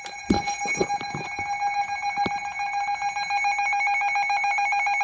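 Weather radios' alert alarms going off for a severe thunderstorm warning: a rapid, evenly pulsing electronic beep at two pitches, with a few low knocks in the first couple of seconds.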